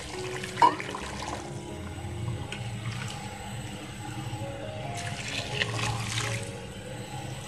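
Water poured from a steel jug into a pot of raw beef chunks, splashing over the meat, in two pours with the second, louder one near the end. Background music plays over it.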